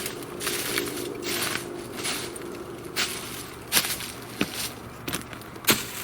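Footsteps on the forest floor, an uneven run of steps with a few sharper knocks among them.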